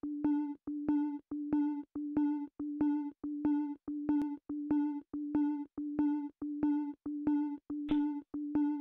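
Background music intro: a synthesized tone pulsing evenly on one note, about two and a half pulses a second, like a busy signal.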